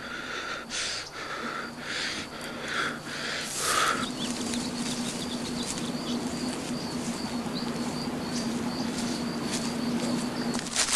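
Dry brush and twigs rustling in about six swishing strokes, spaced roughly like steps through undergrowth, over the first four seconds. After that a steady low hum with a faint high whine carries on.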